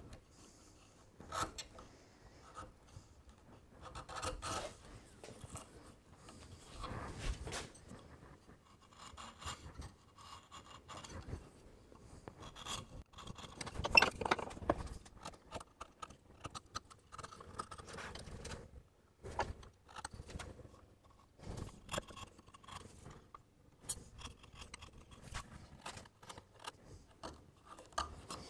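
Bevel-edge chisel paring wood by hand: a run of short, irregular scraping strokes with small clicks. There is one sharper, louder knock about halfway through.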